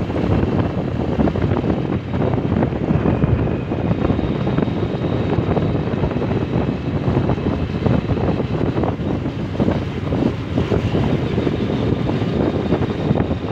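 Wind buffeting the microphone of a moving motorcycle, over the steady sound of the bike and its tyres on the road.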